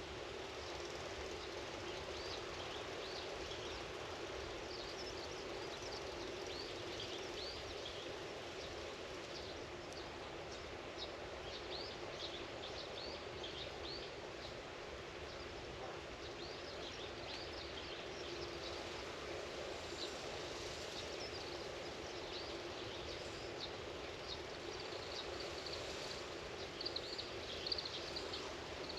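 Outdoor farm ambience: many short bird chirps throughout, busier near the end, over a steady low hum.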